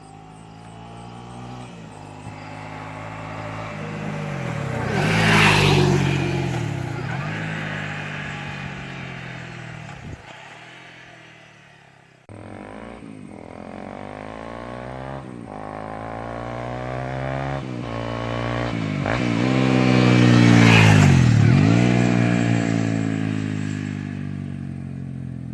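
2018 Honda CRF250L single-cylinder four-stroke motorcycle accelerating past twice, the engine note swelling as it nears and dropping in pitch as it goes by. In the second pass the pitch drops abruptly at each upshift.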